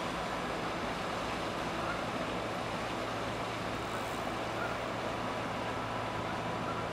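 Tanker ship passing close by: a steady low drone of its engines and machinery over a constant rush of water pouring from its anchor hawse pipe into the canal.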